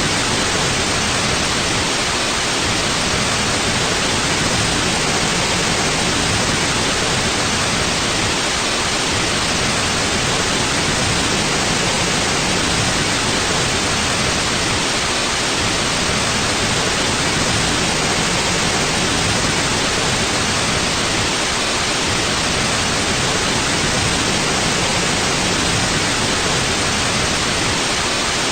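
Steady white noise: an even, unchanging hiss, strongest in the upper range, with no breaks or events.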